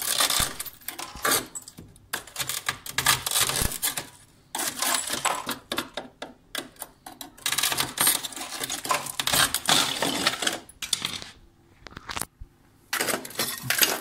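A knife blade chipping and scraping built-up ice off the floor of a refrigerator compartment, in rapid scratchy strokes that come in several bursts with short pauses between. The ice has formed because the fridge's defrost drain hole has frozen over and can no longer carry the water away.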